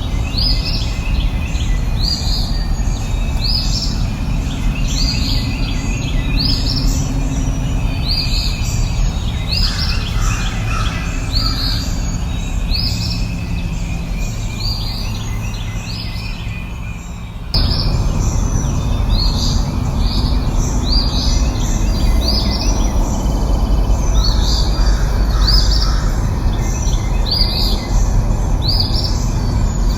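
A bird calling over and over, one short high note about once a second, over a steady low rushing background. The background changes abruptly and grows louder about seventeen seconds in.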